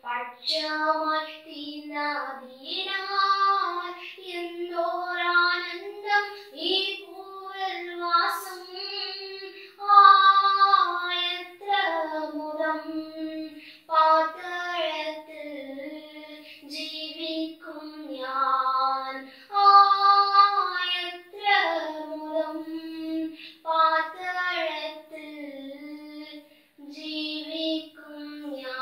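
A girl singing a Christian gospel song solo and unaccompanied, in long held phrases with short breaths between them.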